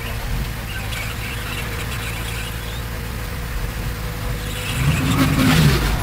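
Diesel engine of earthmoving machinery running steadily, swelling louder for about a second near the end.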